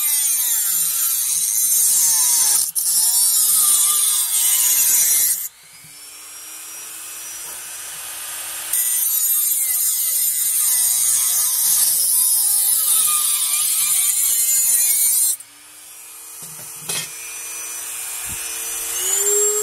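Dremel rotary tool with a cutting wheel slicing through a Marx toy train car's sheet-metal frame, a loud grinding hiss over the motor's whine, which sags and wavers in pitch under load. About five seconds in the cutting stops and the tool runs free with a steady whine for about three seconds, then the cutting resumes. It stops again a few seconds before the end, and near the end the free-running whine rises.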